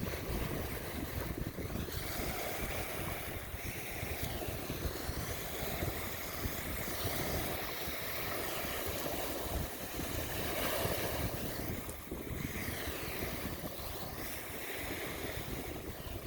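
Bay water washing and lapping against the shore, with wind buffeting the microphone as a low rumble.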